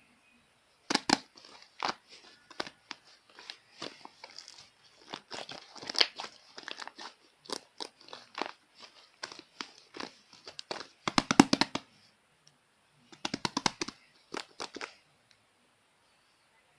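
Slime mixed with shaving foam being squeezed and pressed by hand, giving irregular runs of crackling, popping clicks, with dense clusters about two thirds of the way through.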